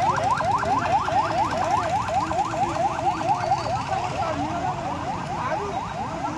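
Police patrol vehicle's electronic siren in a fast yelp: a rising wail repeated about five times a second, slowly fading.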